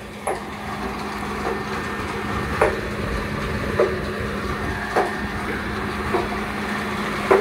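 Large motor-driven petti-para (box-and-wheel) paddy-field dewatering pump running with a steady hum over rushing water, and a regular knock a little more than once a second.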